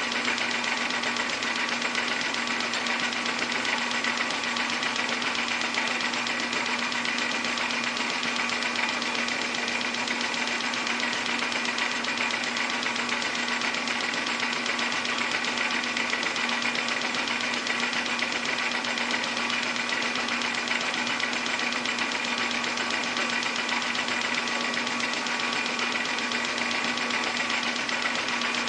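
Metal lathe running steadily under power while turning down a piece of rod held in an R8 collet.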